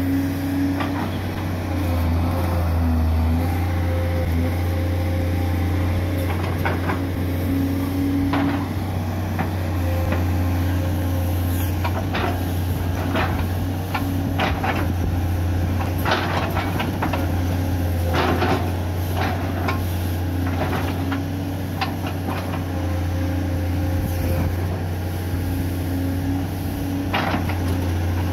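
Hitachi UH045-5 excavator's diesel engine running steadily under load as it digs out a muddy ditch, with a tone that shifts in pitch as the boom and bucket move. Scattered sharp knocks and scrapes from the bucket, more frequent in the second half.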